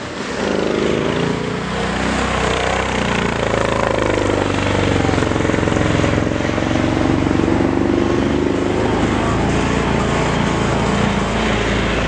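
Off-road 4x4 engine running, its pitch rising and falling as the revs change.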